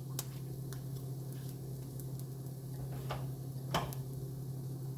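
A few light clicks of a utensil against a frying pan over a steady low hum, the clearest click a little past the middle.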